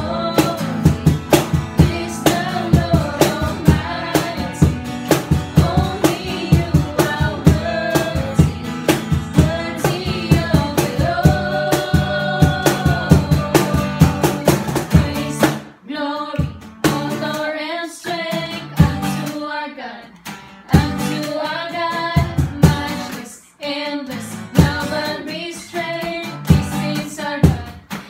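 A small group singing together, women's voices leading, over a strummed acoustic guitar. A little past halfway the strumming thins out and the music drops in level for several seconds, then the full strumming returns near the end.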